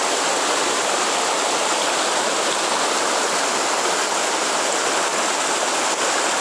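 Waterfall and stream water rushing steadily, an even hiss with no breaks.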